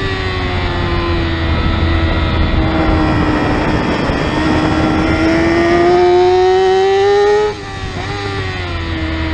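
Onboard sound of a Yamaha R6's 600cc inline-four racing engine at high revs, with wind rush. The revs sag a little, then climb steadily under open throttle. About seven and a half seconds in the throttle snaps shut, the engine note drops, and there is a quick blip of revs as it shifts down for the next corner.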